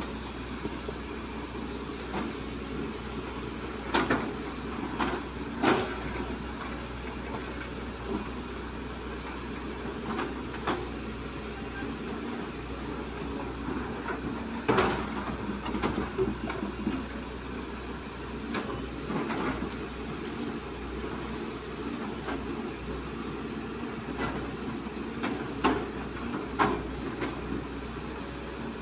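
Diesel engines of two crawler excavators, one a Volvo, running steadily under work, with irregular sharp clanks and knocks from the machines' metal buckets and arms.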